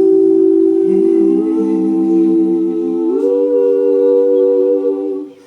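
A cappella vocal group humming sustained, wordless chords, the harmony moving to a new chord twice; the voices break off shortly before the end.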